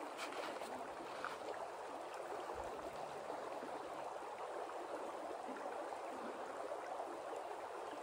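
Shallow creek flowing over rocks and gravel: a steady, soft babble of running water.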